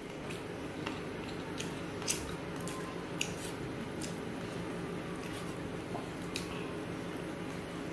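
Wet mouth sounds of someone eating rice and curry by hand: chewing, with scattered sharp lip smacks and clicks at irregular moments, over a steady low background hum.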